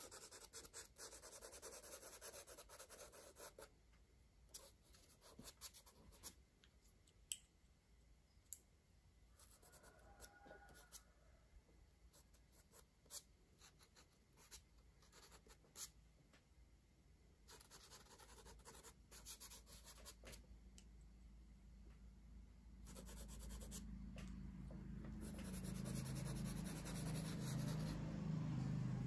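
Crayon strokes scratching and rubbing on paper in stretches, with scattered light clicks between them. The rubbing grows heavier and louder near the end.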